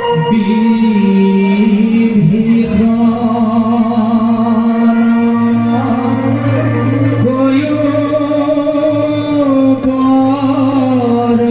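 Entrance music of an Assamese Bhaona play: a voice singing long, slowly bending held notes with instrumental accompaniment over a steady low tone.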